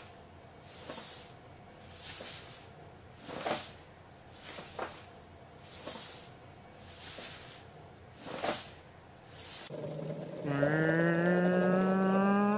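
Short hissing puffs repeating about every second and a quarter, then, about ten seconds in, a long low animal call held on one slightly rising pitch, the loudest sound here.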